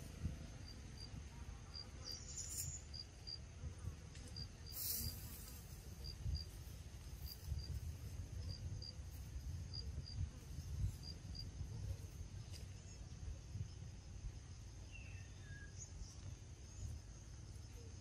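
Forest insects: a steady high drone with a pair of short high chirps repeating about once a second, over a low uneven rumble. A brief falling call sounds near the end.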